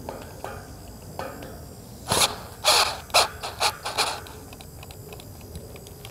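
Cordless drill enlarging a hole in the steel frame, working in a run of short, harsh bursts about two seconds in, followed by faint rapid clicking.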